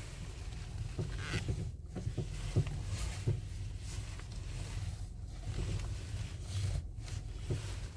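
A car's steering being turned with the engine idling, giving short irregular creaks from the front end.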